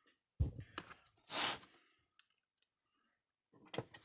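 Scattered small clicks and knocks of a screw and screwdriver being handled and tried in the screw holes of an electric fence energizer's case, with a brief soft rush of noise about a second and a half in.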